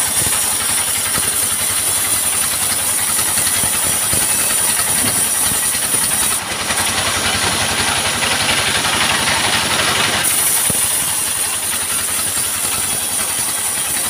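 Engine-driven portable sawmill running steadily, its engine pulsing rapidly under a high whine from the saw. From about six to ten seconds in the whine gives way to a rougher hiss as a log is pushed through the saw.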